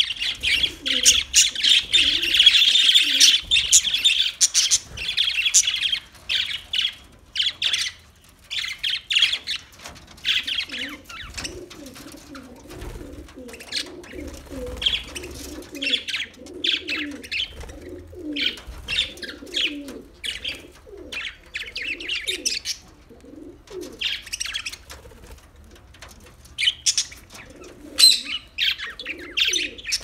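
A flock of budgerigars chattering: dense, rapid high chirps and warbles, thickest in the first several seconds, with a lower repeated call running underneath from about ten seconds in. Wings flutter near the end as a bird takes off.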